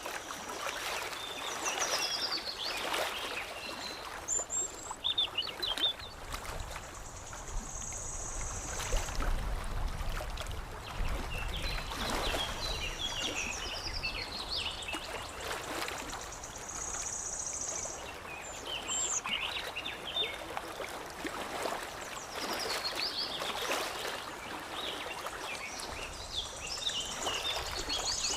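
Small birds chirping and singing over a steady wash of lapping water. A short, high buzzing call comes back about every nine seconds.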